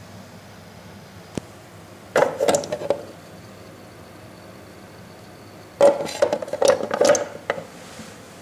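Light clatter of small hard objects being handled and knocked together: a single click, then two bursts of quick knocks and taps, each about a second long, around two and six seconds in.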